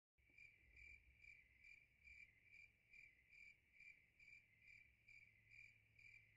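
Faint cricket chirping in a steady rhythm, a little over two clear, high chirps a second, cutting in just after the start over a faint low hum.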